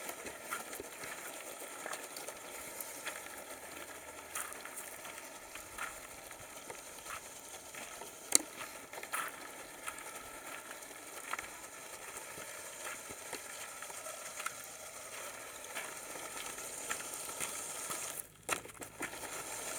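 Lego Technic RC truck driving over rough outdoor ground: a steady crackling rustle from its tyres, with scattered clicks and a sharp knock about eight seconds in.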